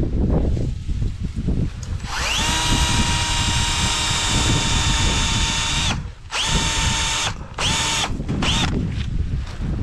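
A power drill runs in bursts. About two seconds in it spins up with a rising whine and runs steadily for about four seconds, then it gives three short bursts, each with a quick rising start. Low knocks and handling of wood are heard underneath.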